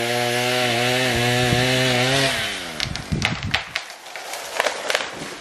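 Husqvarna 435 two-stroke chainsaw running steadily at full throttle through a tree's trunk. About two seconds in the throttle is let off and the revs fall away. The dead tree then comes down, with a quick string of cracks and crashes as it breaks through branches and hits the ground.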